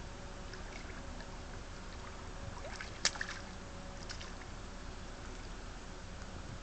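Hooked salmon swirling and splashing at the surface of shallow river water, with one short sharp splash about three seconds in, over the faint steady flow of the river.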